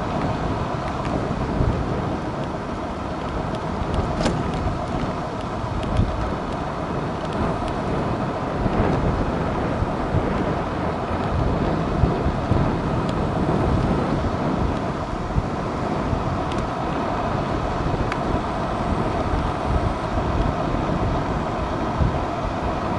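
Wind rushing over the microphone of a moving electric scooter, mixed with tyre and road rumble: a steady, loud noise with a few light knocks.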